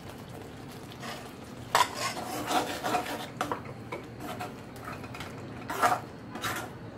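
Metal ladle stirring thick masala in a metal kadai, scraping against the pan in a string of uneven strokes from about a second in. The sharpest scrapes come about two seconds in and near the end.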